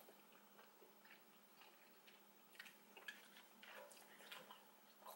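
Near silence with faint, scattered wet mouth clicks from chewing a mouthful of noodles with the mouth closed.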